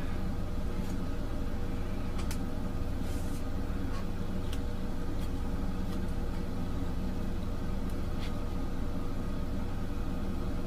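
Steady low background hum with a faint steady tone, over which come a few faint, soft ticks and rustles as carbon paper is pulled taut and blue painter's tape is pressed down.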